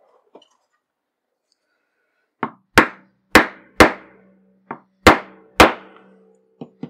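Mallet striking a metal strap-end punch to cut a rounded end on a thick veg-tan leather strap: seven sharp blows, about two a second, with a short pause after the fourth.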